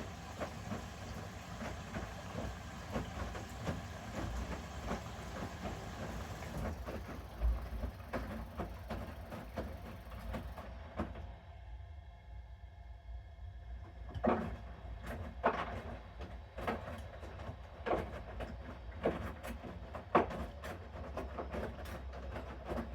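Bosch Series 6 front-loading washing machine in its main wash: a steady hiss and rumble, which stops about ten seconds in. After that, the laundry thuds as it tumbles in the turning drum, about once a second.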